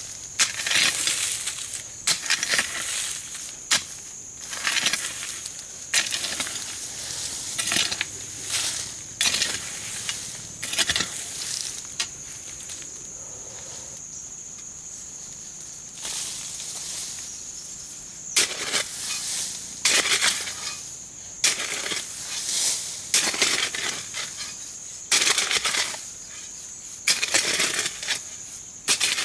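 Hoe blade striking and scraping into dry red soil, stroke after stroke at uneven intervals, with loose earth crumbling; a quieter pause about halfway through before the strokes resume.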